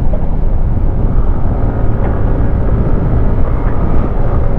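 Yamaha NMAX scooter riding along: steady wind rush on the microphone with the engine running underneath.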